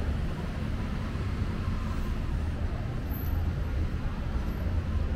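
Steady city traffic noise, a continuous low rumble of passing vehicles.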